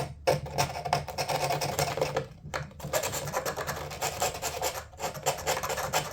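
Sandpaper rasping over the edges of a fiberglass door panel in quick repeated strokes, with short pauses twice: a safety sand that takes off sharp, prickly fiberglass edges.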